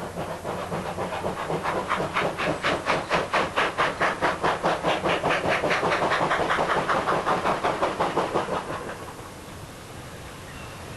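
Steam locomotive exhaust beats, a quick even chuff of about four to five beats a second that builds up, then fades away after about eight seconds.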